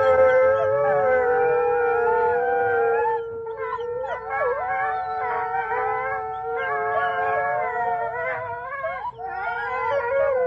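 A pack of wolves howling together: several long, overlapping howls at different pitches, one low and steady beneath, and higher voices wavering and breaking above it.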